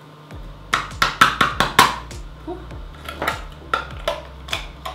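Metal teaspoon clicking and scraping against a powder tin as its lid is pried open: a quick run of sharp clicks about a second in, then scattered clinks.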